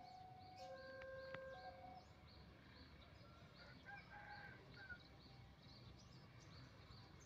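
Faint outdoor ambience: a high, thin chirp repeats about three times a second throughout, with a few brief bird-like calls about four seconds in. In the first two seconds, a two-note electronic tone alternates slowly between a higher and a lower pitch, then stops.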